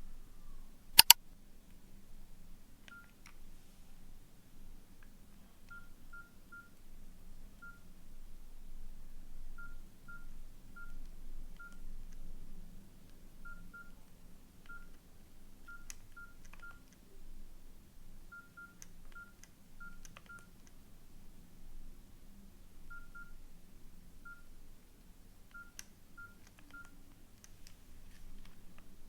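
Nokia N80 keypad tones: short beeps, all at one pitch, coming irregularly as keys are pressed one after another, some with a faint key click. A single sharp, loud click about a second in.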